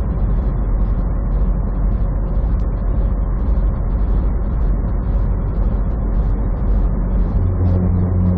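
Semi truck cruising at highway speed: a steady diesel engine drone with road noise, heard from inside the cab. Near the end a deeper engine hum grows stronger.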